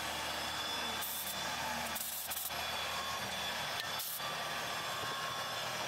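CNC milling machine (MAHO MH400E) running steadily as its end mill cuts aluminium under flood coolant. Over it come short bursts of compressed air from a blow gun clearing chips from the cut, about one, two and four seconds in.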